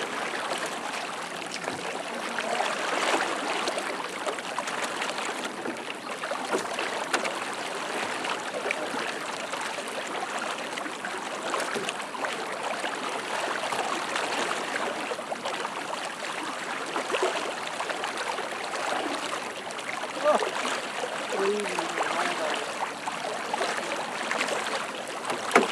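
Steady rushing of fast-flowing floodwater in a swollen river.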